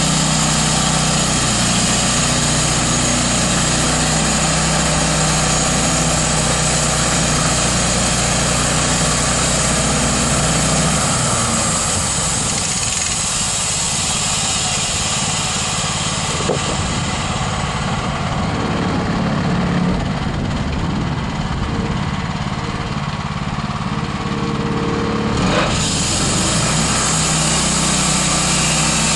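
The band sawmill's 13 HP Honda single-cylinder gasoline engine running steadily. From about eleven seconds in its sound changes, and about four seconds before the end it abruptly returns to the earlier steady note.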